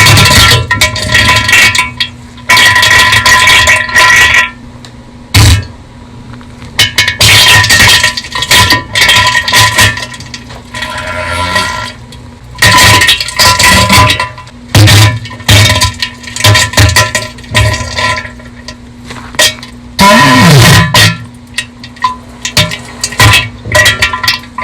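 Bass-boosted diarrhea sound effect: irregular, very loud spluttering bursts of uneven length, distorted and near clipping, with short quieter gaps between them.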